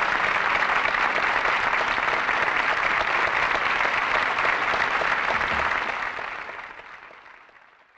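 Studio audience applauding after a live song, the clapping fading out over the last two seconds.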